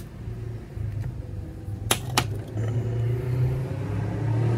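Pipe lighter clicking twice, about a third of a second apart, while the pipe is being relit. Under it runs a steady low rumble.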